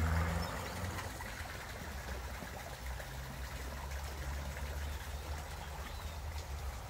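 Water trickling steadily into a garden koi pond, over a low steady rumble that swells briefly at the start.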